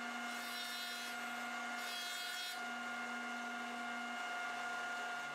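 Jointer running with a steady hum while a bird's eye maple board is edge-jointed. The knives' cutting hiss swells twice, about half a second in and again around two seconds.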